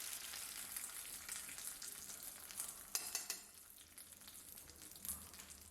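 Faint crackling sizzle of a hot mustard-oil tempering poured onto yogurt, with a few spoon clicks; it dies down about halfway through.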